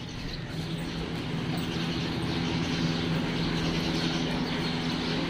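A machine running steadily: a continuous low hum with a faint whirring hiss over it.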